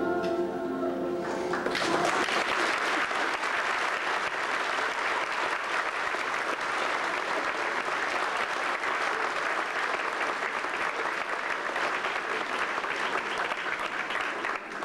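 A short stretch of music ends about two seconds in, and an audience breaks into sustained applause, which stops shortly before the end.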